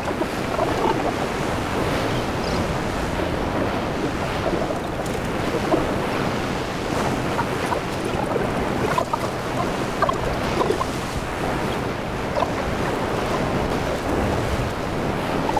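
Ocean surf: small waves breaking and washing up a flat sandy beach, a continuous rushing wash with no pauses.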